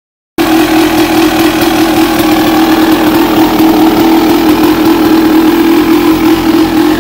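1986 Honda CR250R's single-cylinder two-stroke engine idling steadily, cutting in abruptly about half a second in.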